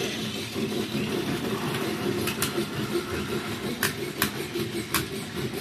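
Battery-powered toy train running along plastic track: a steady whir of its small motor and gears, with a few sharp clicks about two and four seconds in.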